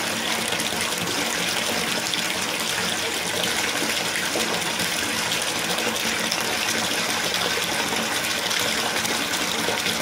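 Water running steadily into a bathtub from the tap: a constant, even rush with a faint low hum beneath it.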